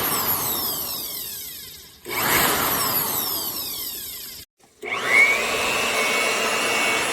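Corded electric handheld blower switched on in short bursts, its motor whine falling in pitch as it winds down after each, twice. After a brief stop it is switched on again, the whine rising as the motor spins up and then running steadily at full speed.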